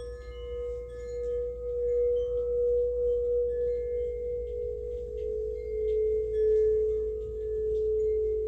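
Singing bowl sounding a sustained ringing tone that swells and fades in slow, wavering pulses, with faint higher ringing tones above it.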